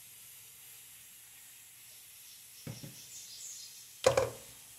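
Plastic funnel and sacolé bag handled while filling: a soft knock near the three-second mark and a louder, sharp plastic knock about four seconds in as the funnel is lifted out, over a faint steady hiss.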